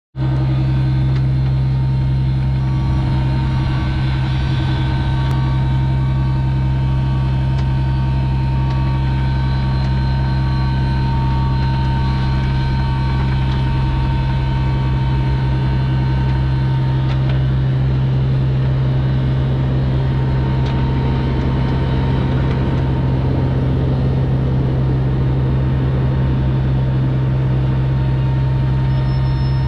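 Komatsu PC27MR mini excavator's diesel engine running at a steady speed, a constant low hum. A faint beep repeats about once a second through the first half.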